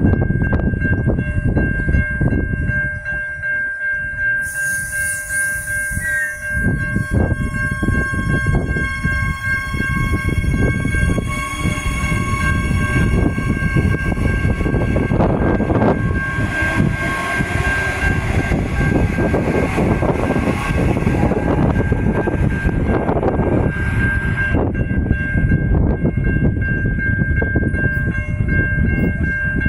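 Adelaide Metro 4000 class electric train pulling away, its wheels rumbling on the rails under a steady high tone. Its motor whine rises in pitch as it gathers speed from about seven seconds in.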